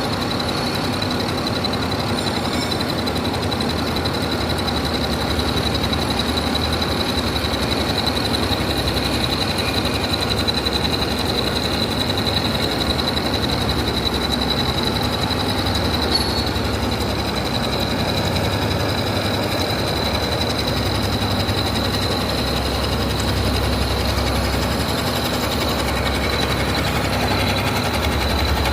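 CNC milling machine running steadily, a constant mechanical noise with a steady high-pitched whine over it.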